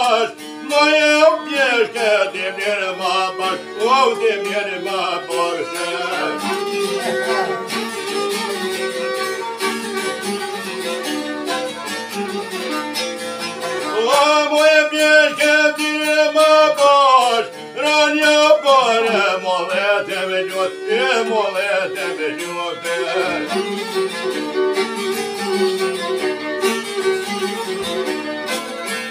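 Albanian folk song: a man sings in long, ornamented held notes over a violin and a plucked long-necked lute. The voice drops out for stretches between phrases, leaving the fiddle and lute playing on.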